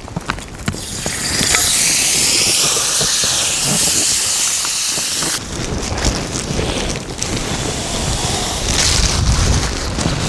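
Raw steak sizzling as it sears, a loud hiss that swells about a second in and then cuts off suddenly about halfway through. A lower, rougher rushing noise follows.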